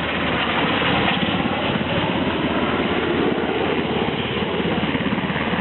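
Aircraft engine running steadily, a loud even drone with a fast flutter.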